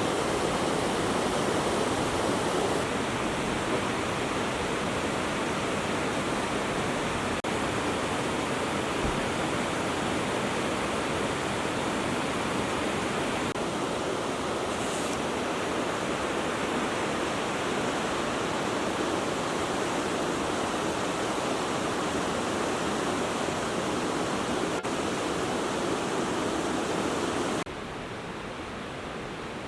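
Steady rush of flowing water, shifting slightly in character a few times and dropping quieter near the end.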